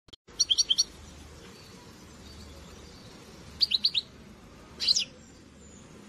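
European goldfinch (Moroccan chardonneret) chirping in three short bursts of quick high notes: about half a second in, near four seconds, and about five seconds in.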